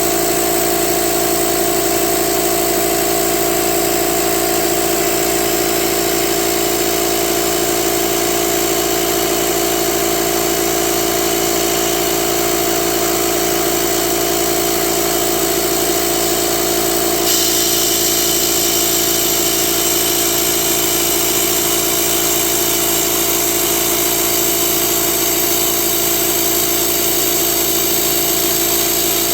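xTool D1 Pro diode laser engraver running through a cut: a steady mechanical hum with a hiss that brightens about seventeen seconds in.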